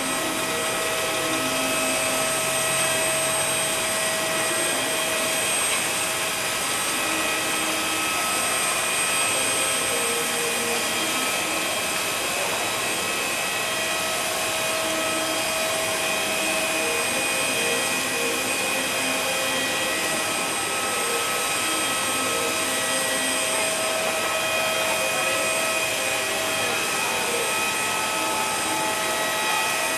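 Steady jet whine and rush from a parked airliner with engines shut down, typical of its auxiliary power unit running, holding several even tones throughout.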